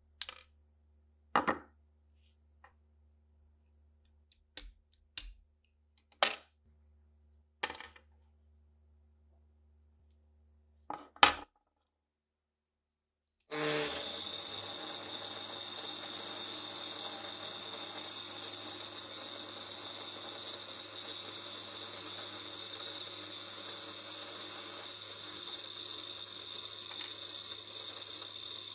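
Small steel pistol parts clinking and knocking against a hard surface, about a dozen sharp separate clicks spread over several seconds. About halfway through the sound cuts out, and a steady hiss with a thin high whine begins and runs on evenly.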